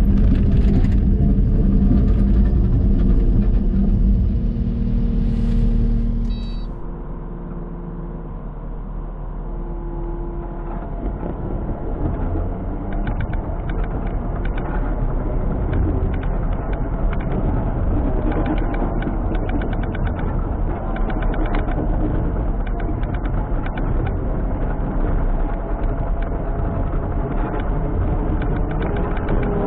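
A Kubota SVL97-2 tracked skid steer's diesel engine running with a steady rumble. About six seconds in the sound changes abruptly, and after that a light rattling runs over the engine noise.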